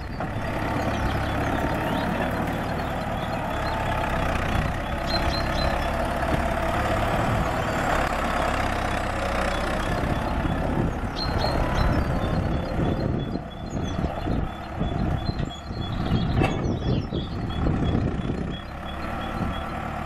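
Farm tractor's diesel engine running under load as it manoeuvres while handling plastic-wrapped silage bales with front and rear bale forks. The engine note is steady at first and uneven in the second half.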